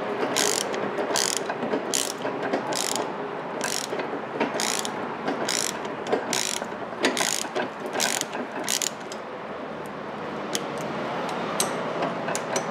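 Ratchet wrench clicking in short runs about once a second as it backs the nut off a rusty sway bar end link, the link's stud held from spinning by an Allen key. From about nine seconds in the clicks come quicker and lighter.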